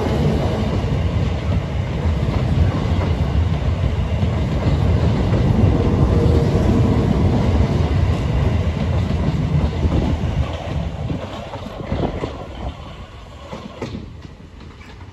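A South Western Railway electric multiple unit passing close by, its wheels rumbling and clacking over the rail joints. The sound fades steadily after about ten seconds as the last carriages move away, with a few sharp clacks near the end.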